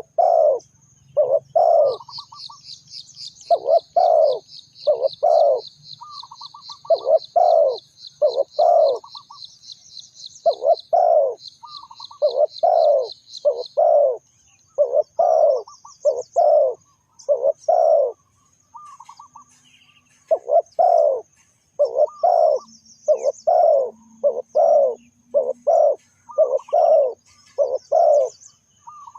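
Spotted dove cooing, a long run of short, repeated coos. A higher, fast-trilling bird call runs behind it for the first half, with faint high chirps throughout.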